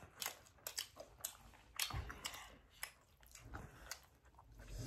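Two people chewing momos (dumplings) close to the microphone: wet mouth smacks and clicks scattered throughout.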